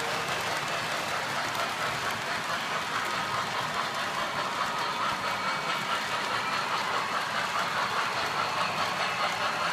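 O-gauge model train running on its track: a steady rolling rumble of wheels and motor with a fine, rapid clicking.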